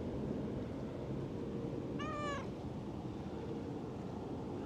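A cat gives one short meow about two seconds in, its pitch rising then falling, and begins another right at the end, over a steady low rumble.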